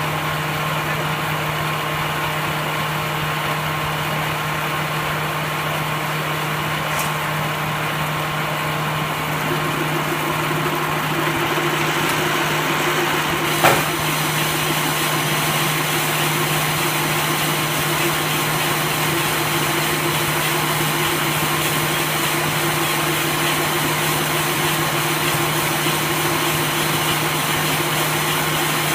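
Automatic silage baler machine running with a steady mechanical hum. About ten seconds in, its tone shifts and it gets a little louder, and there is a single sharp knock about halfway through.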